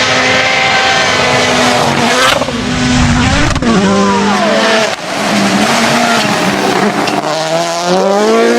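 Rally car engine at high revs. Its pitch drops and falls away as it comes off the throttle about three and a half seconds in, then climbs hard again near the end as it accelerates, over a constant rush of tyre and road noise.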